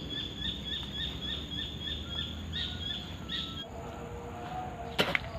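A bird calling outdoors, a quick run of short, repeated high chirps about three a second, which stops a little over halfway through. A sharp knock near the end.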